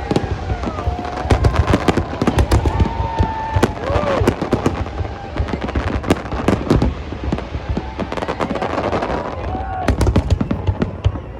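Fireworks display: a rapid, continuous series of bangs and crackles that grows denser near the end.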